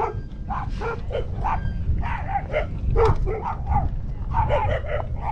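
Dog barking in quick short barks, about three a second, pausing briefly near four seconds in, over a steady low rumble.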